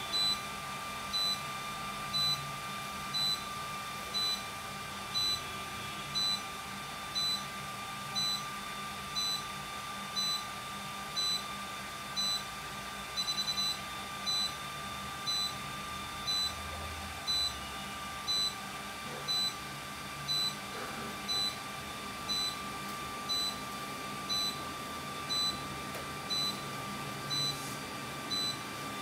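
Low-level therapy laser unit beeping about once a second while its probe is emitting, each beep short and high, with a quick run of several beeps about halfway through. A steady electrical hum runs underneath.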